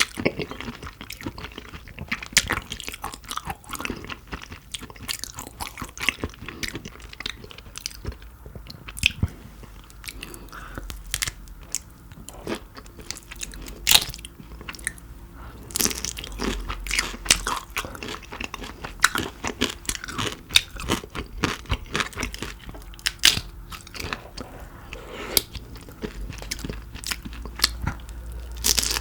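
Close-miked chewing and crunching of shrimp, with many sharp, irregular crunches and wet mouth sounds.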